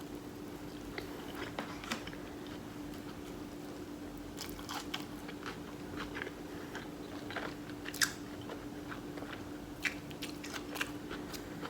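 A person chewing and biting food close to the microphone: scattered soft clicks and crunches, a sharper one about two-thirds of the way through, over a steady low hum.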